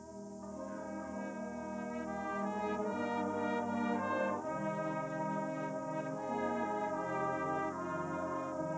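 Brass band of cornets, euphoniums and tubas playing sustained chords, swelling from soft to full over the first few seconds and then holding steady.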